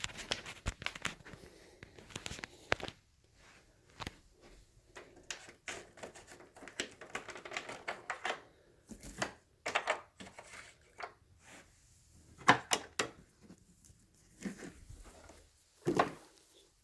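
Irregular clicks, knocks and rustles of objects being handled, with a few sharper knocks near the end; no motor is running.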